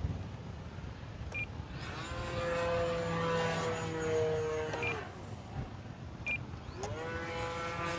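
Brushless electric motor and propeller of an E-flite Turbo Timber RC plane whining as it is throttled up about two seconds in, held, and throttled back near the five-second mark, then throttled up again near the end. Wind rumbles on the microphone throughout, and a few short high beeps sound.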